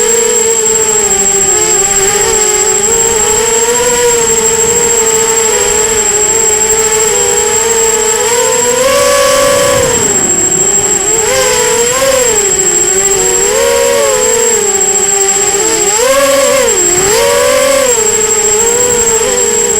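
Brushless motors and propellers of a 250-size FPV racing quadcopter in flight, a whine that rises and falls in pitch with the throttle. A steady high-pitched electronic whine runs underneath.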